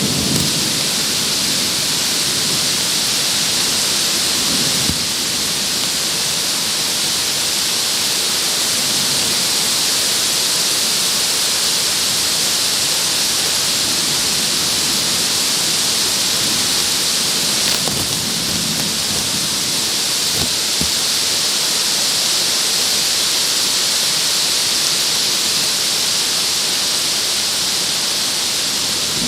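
Downburst storm: torrential wind-driven rain making a loud, steady, dense hiss, heard through a plastic sheet covering the camera.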